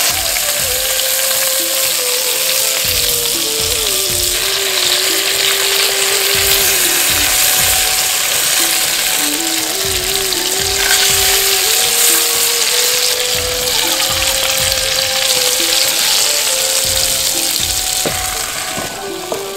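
Whole slit brinjals frying in hot oil in a pot, a steady sizzle throughout. The brinjals are being fried until just before they turn soft. A background music melody plays over the sizzle.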